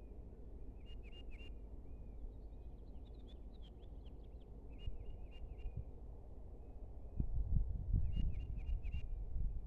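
Small birds chirping in a field: short repeated chirps, with a quick flurry of higher notes about three seconds in. A louder low rumble comes in about seven seconds in.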